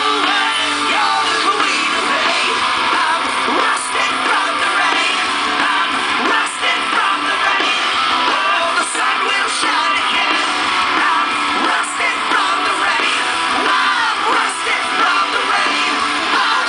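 Rock music: guitar with a loud sung or shouted vocal, playing steadily throughout.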